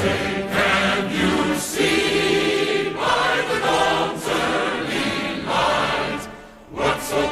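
Choral music: a choir singing in phrases about a second long, with a brief drop in level near the end.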